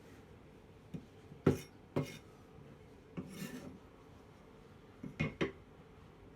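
Kitchen utensils handled on a cutting board: a few scattered knocks, a short scraping rub about three seconds in, and a quick cluster of three knocks near the end.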